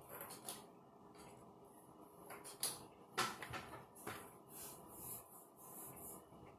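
Faint knocks and rustling from hair tools being handled, with the loudest knocks about two and three seconds in, over a steady hum.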